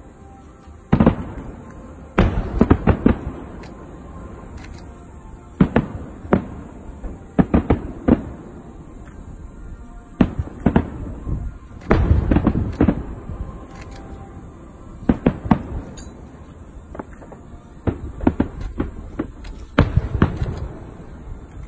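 Aerial fireworks shells bursting: sharp booms with deep rumbling tails, coming in clusters of several bangs close together with short gaps between.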